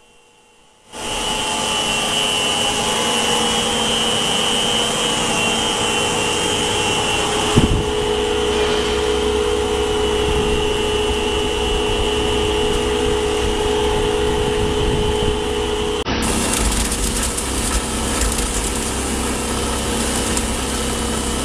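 Plastic film agglomerator running: a loud, steady machine noise with a high whine, starting about a second in. There is a single sharp knock near eight seconds in, and the sound changes abruptly about sixteen seconds in.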